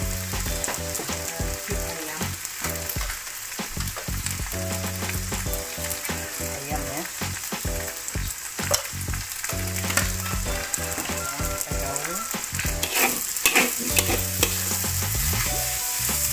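Rice vermicelli stir-frying in a steel wok: a steady sizzle, with a metal spatula scraping and clinking against the wok as the noodles are tossed. The clatter is busiest and loudest about thirteen seconds in.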